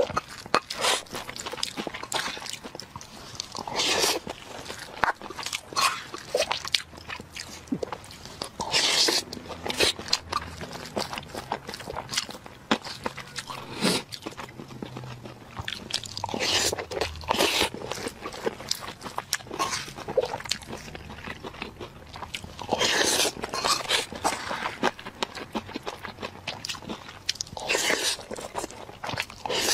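Close-miked eating of noodles: wet chewing and mouth clicks throughout, with a louder slurp or bite every few seconds.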